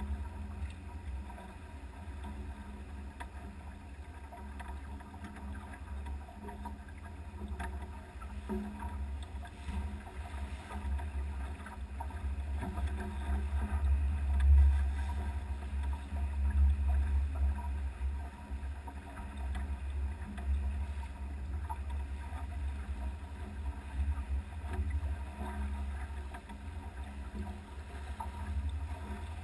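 Wind buffeting the microphone and water rushing along the hull of a Pearson Triton sailboat under sail: a steady low rumble that swells in gusts, loudest about halfway through.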